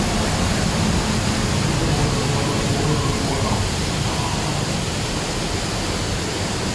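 Water from the Catastrophe Canyon flood effect cascading, a loud steady rushing.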